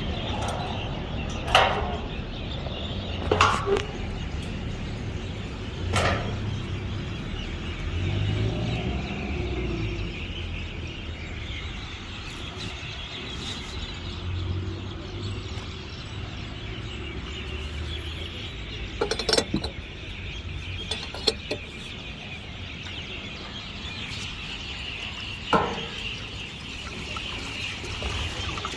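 Petrol being poured from a can into a car's fuel tank: a steady rushing, broken now and then by sharp clinks and knocks.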